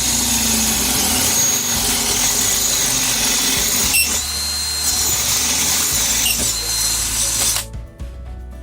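Hamilton Ultimate cordless drill running under load while drilling, with a sharp knock about four seconds in. It stops near the end, leaving background music.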